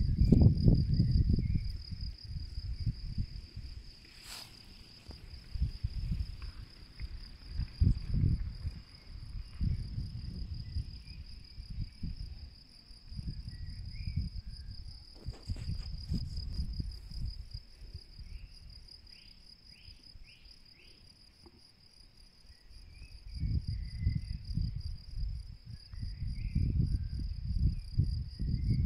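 Meadow insects chirping in a steady, high-pitched, rapidly pulsing trill, with wind gusting on the microphone as a low rumble that eases off for a few seconds past the middle.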